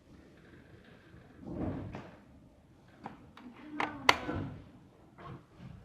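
Handling noise: a soft thump about a second and a half in, then a few sharp clicks and knocks, the loudest about four seconds in.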